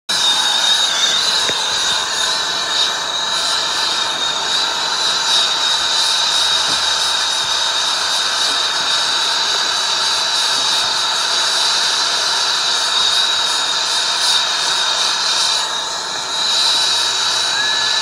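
Air-acetylene brazing torch burning steadily on a copper pipe joint: a loud, even hiss with a steady high whistle held over it, dipping briefly near the end.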